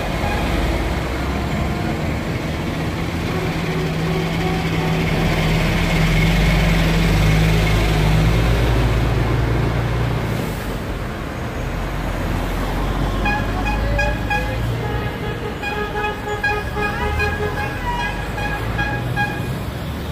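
A heavy lorry's engine passing close at low speed, a deep steady drone loudest a few seconds in. Then cars pass, with a string of short horn toots through the second half.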